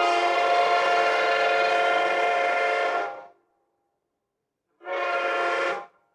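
Train horn sounding two blasts: a long steady blast of about three seconds, then a short blast of about a second.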